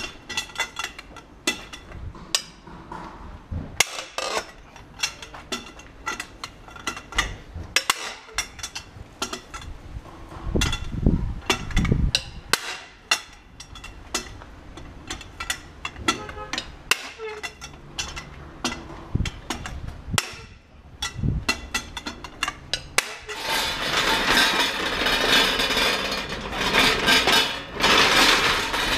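Repeated metal clinks and knocks of a long socket wrench on a tractor's rear wheel nuts as they are tightened again after working loose. About two-thirds of the way through, a louder steady rushing noise takes over.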